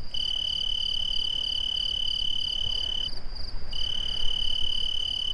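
Insect chirping, cricket-like: a rapid pulsing trill under a steady high whine. The whine drops out briefly about three seconds in and then returns.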